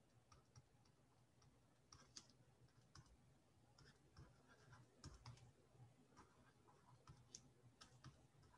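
Near silence with faint, irregular clicks and taps of a pen stylus on a drawing tablet while writing by hand.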